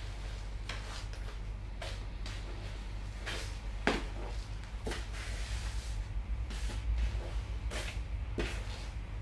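Snakeskin cowboy boots stepping and grinding on crushed Ritz cracker crumbs on a tile floor: irregular sharp heel knocks on the tile with gritty crunching and scraping between them, the loudest knock about four seconds in. A steady low hum runs underneath.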